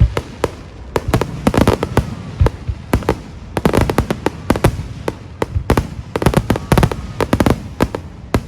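Fireworks display: a rapid, irregular string of bangs and cracks from bursting shells, several a second and often overlapping.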